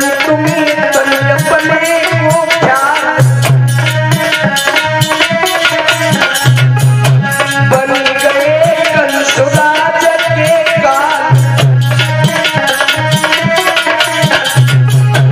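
A devotional Hindi bhajan: a man singing with a harmonium melody, driven by steady dholak drum strokes and a constant jingling percussion.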